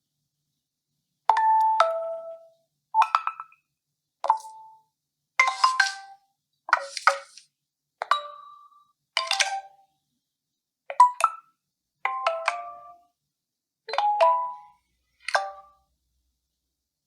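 A Nokia 1 phone's speaker playing its preset message or notification sounds one after another: eleven short, different chimes and dings, each under a second, with brief silent gaps between them.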